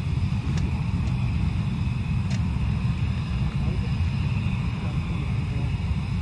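Jet engines of two Panavia Tornados, their Turbo-Union RB199 turbofans, running steadily with a deep rumble under a high turbine whine as the pair rolls along the runway.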